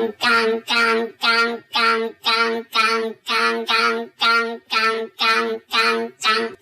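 Railroad-crossing alarm in an animation, a 'kan-kan' tone repeating steadily about two and a half times a second. Each pulse is the same pitch and sounds voice-like, as if sung.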